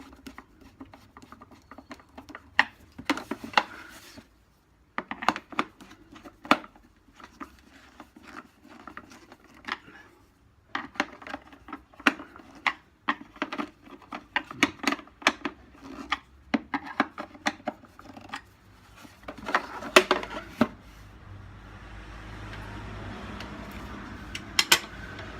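Irregular clicks, taps and clatters of hard parts being handled and fitted together while a Henry vacuum cleaner is reassembled. From about 21 seconds in, a steady low rumbling noise comes in underneath.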